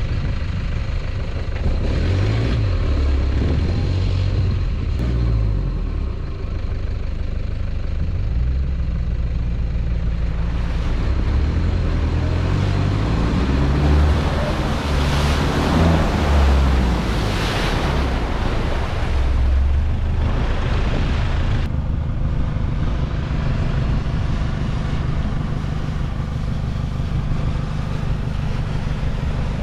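A four-wheel-drive vehicle's engine running while driving, its pitch rising and falling as the revs change. A louder rushing noise builds from about ten seconds in and cuts off abruptly near twenty-two seconds.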